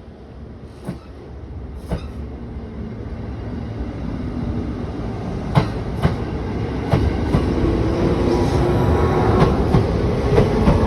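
An electric train approaching and growing steadily louder, its wheels clicking over rail joints more and more often as it nears.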